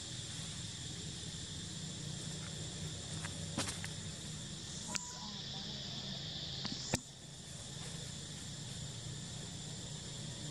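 Steady high-pitched insect chorus, with a few short clicks, the loudest about seven seconds in.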